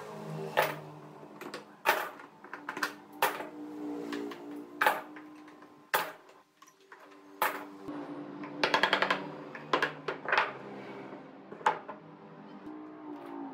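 Steel C-clamps and bar clamps being unscrewed from a glued bent-wood lamination and set down on a wooden workbench: irregular sharp metal clanks and knocks, with a quick rattling run of clicks about nine seconds in.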